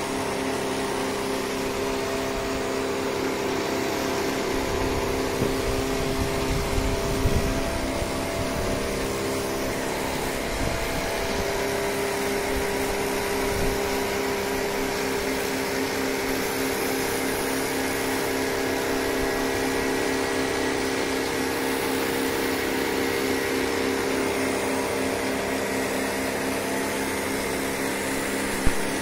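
Electric pressure washer running steadily, its motor and pump humming under the hiss of the high-pressure water jet striking the concrete slab.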